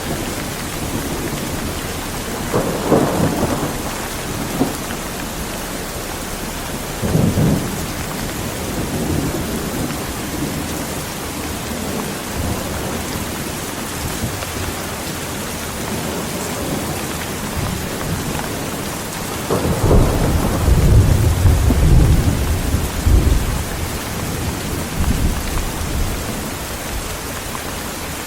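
Heavy, steady rain with thunder: short rumbles a few seconds in, then a longer, louder rolling rumble about two-thirds of the way through.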